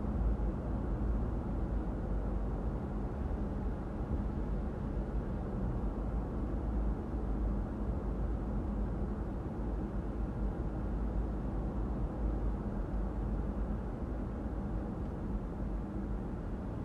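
Steady low rumble of a car being driven: road and engine noise with no changes in pitch.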